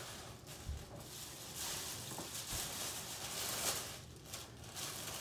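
Clear plastic wrapping crinkling and rustling as it is handled and pulled off a bust, with a couple of soft low thumps.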